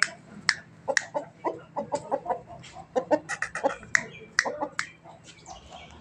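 White Aseel rooster making short clucking calls, mixed with sharp clicks about every half second.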